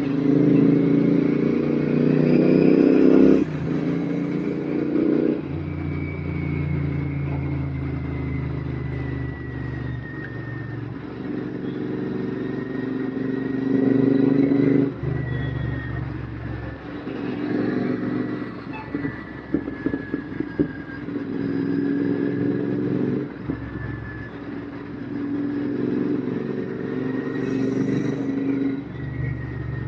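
Royal Enfield GT650's parallel-twin engine through an RRP aftermarket exhaust, riding along and revving up through the gears with several shifts. Around two-thirds of the way through, a run of sharp crackles and pops comes on the overrun.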